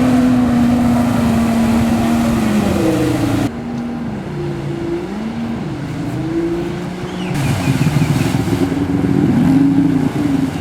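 Jet ski engine running under throttle. Its pitch holds steady for about three seconds, then rises and falls repeatedly as the throttle is opened and eased.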